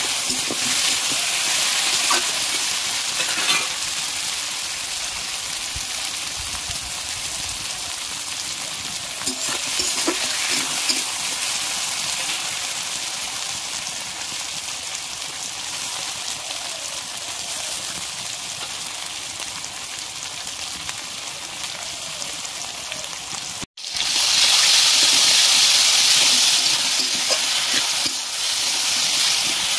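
Potato, tomato and shallot pieces frying in hot oil in a metal wok, a steady sizzle with the scrape of a spatula stirring them. About 24 seconds in the sound cuts out for an instant, then the sizzle comes back louder for a few seconds.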